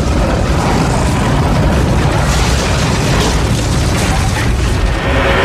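A loud, steady wash of noise, heaviest in the low end: a cinematic boom sound effect under an animated logo sting.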